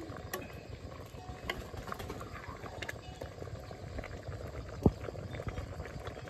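Curry simmering at a boil in a metal pot over a wood fire: a steady bubbling with scattered small clicks, and one sharp tap about five seconds in.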